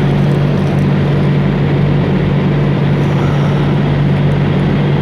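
Steady low drone of an idling truck engine, a constant hum with a noisy rumble over it.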